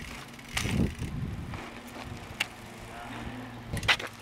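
BMX bike rolling on pavement, with the tyres running and a few sharp clicks and knocks from the bike.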